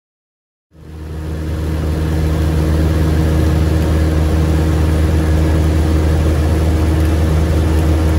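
Steady drone of a light single-engine propeller plane's piston engine in cruise flight, fading in about a second in.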